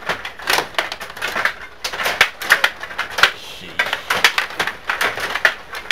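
Stiga table hockey game in play: quick, irregular clacking and knocking of the rod-driven plastic players and the puck, a few strikes a second.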